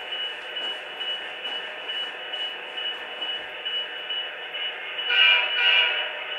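The Quantum sound decoder of an HO-scale Alco RS-27 model plays a diesel engine running through its small onboard speaker. About five seconds in, two short horn blasts sound.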